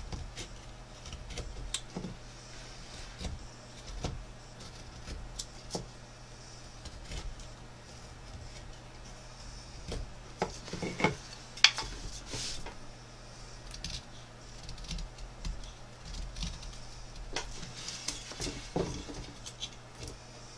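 Carving knife cutting shavings from a wooden spoon blank by hand: irregular short cuts and scrapes of the blade through the wood, a few of them sharper and louder, over a low steady hum.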